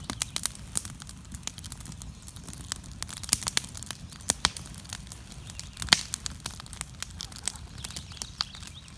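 Wood campfire crackling: irregular sharp pops and snaps, several a second, over a faint low rumble.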